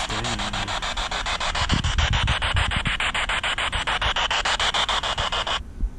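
Spirit box scanning through radio stations: loud static hiss chopped by quick clicks about nine times a second, with a brief broken voice fragment near the start. It cuts off suddenly about five and a half seconds in.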